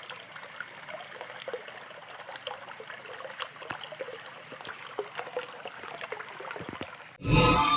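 Water trickling, with many small scattered plinks over a steady wash. About seven seconds in, a sudden loud burst cuts in.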